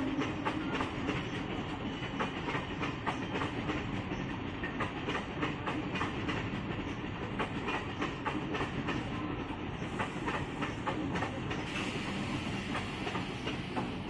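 Indian Railways MEMU passenger train running by, its wheels clicking over the rail joints in a steady clatter over the rumble of the coaches.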